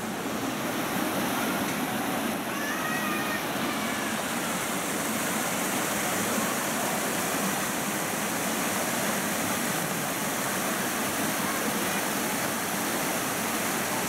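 Rushing water of a rocky mountain stream cascading over boulders: a steady, even rush.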